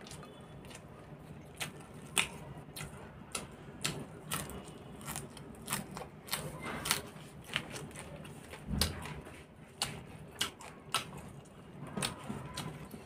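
A person chewing and smacking food, with many short sharp clicks and crunches throughout, and a dull thump about nine seconds in.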